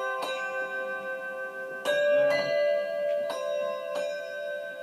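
Handbells rung one at a time by several players, about five notes of different pitches. Each note rings on and overlaps the next.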